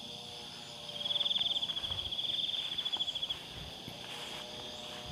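Insects trilling in a rapid, pulsing high buzz, loudest from about one to three seconds in, over a steady high hum of other insects.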